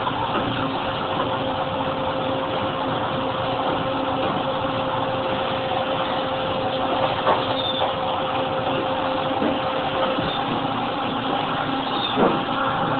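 Nissei FS260 292-ton injection molding machine running, a steady mechanical drone with a constant hum, with a couple of faint clicks about seven and twelve seconds in.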